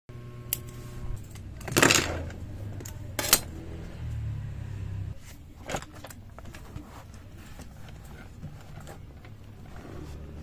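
Paperback book being handled at a desk: a few sharp rustles and knocks of its pages and cover, the loudest about two seconds in, over a faint low hum.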